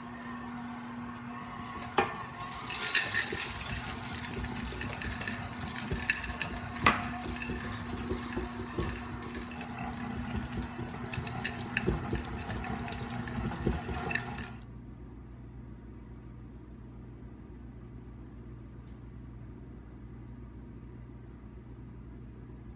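KitchenAid stand mixer running, its beater working chocolate chips into cookie dough in the steel bowl, with a steady motor whine and much clicking and clattering. It cuts off suddenly about 15 s in, leaving a steady low hum.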